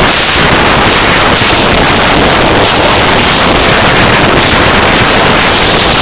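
Harsh noise music: a loud, unbroken wall of distorted noise filling every register from deep rumble to high hiss, holding steady without pauses.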